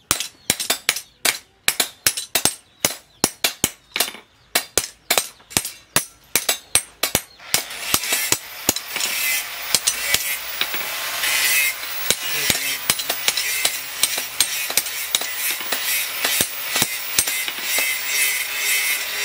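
Hand hammer striking a steel machete blank, forged from a tractor plough tool, on a steel anvil: quick, even metallic blows at about three a second, spacing out later. About seven seconds in, a steady hiss joins underneath the blows.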